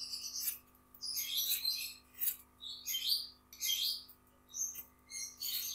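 Pointed gourd (potol) skin being scraped against the curved blade of a boti: a run of short scraping strokes, about two a second, with brief pauses between them.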